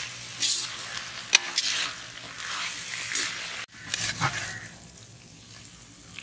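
Noodles and vegetables sizzling in a large iron kadai while a long-handled metal spatula scrapes and tosses them, with a sharp clank of metal on the pan about a second in. The stirring strokes stop a little past halfway, leaving quieter sizzling.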